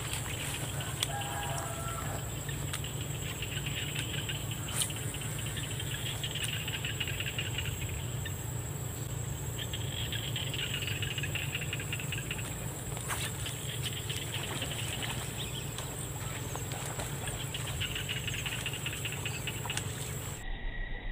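Rural field ambience: a steady high insect whine and low hum, with swells of insect chirring every few seconds and a short distant bird call about a second in. The whine and hum cut off abruptly near the end at an edit.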